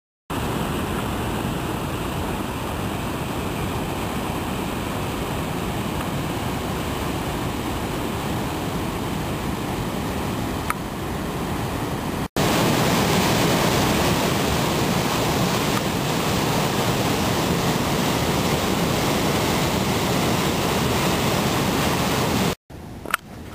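River rapids in spring runoff, whitewater rushing over granite in a steady, even wash of noise that gets louder after a cut about halfway through. Near the end it drops off abruptly to a much quieter background with one brief click.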